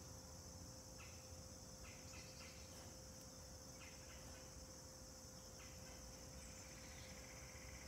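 Faint outdoor ambience: a steady high-pitched insect chirring, with a few short bird chirps and a brief trill near the end.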